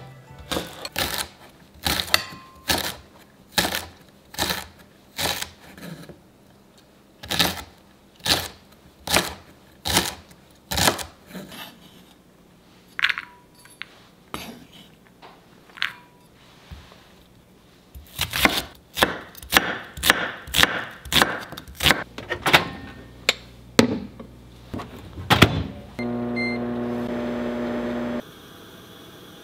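Kitchen knife chopping garlic scapes on a wooden cutting board: sharp knocks at about one a second, then faster at about two a second. Near the end a microwave oven hums steadily for about two seconds and cuts off suddenly.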